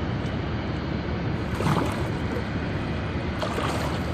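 Water splashing twice as a hand grabs a large sturgeon by the tail at the side of a boat, over a steady rushing background.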